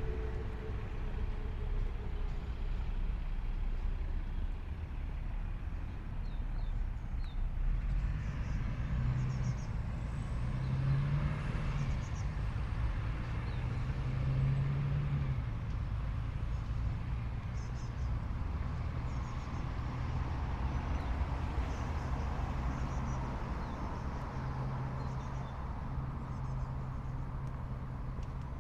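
City street traffic: cars and other motor vehicles running and driving past, with a steady low engine hum that swells a little about a third of the way in.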